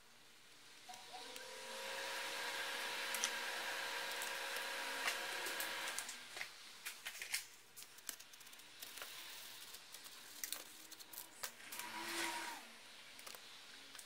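A small electric blower runs for about five seconds, a steady rush of air with a whine that rises slightly as it spins up, then cuts off. Clicks and handling of metal parts follow, with a second brief whir near the end.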